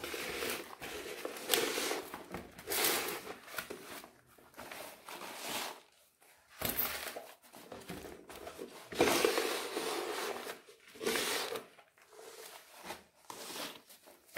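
Dry, finely crumbled soil being scooped with a cut-off plastic bottle and poured into a plastic grow bag: a series of gritty rustling pours and crinkles of the bag, each about a second long, with short pauses between.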